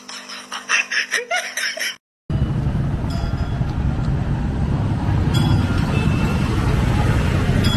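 A quick run of sharp clicks and short squeaks, cut off by a brief silence, then a steady low rumble of street traffic.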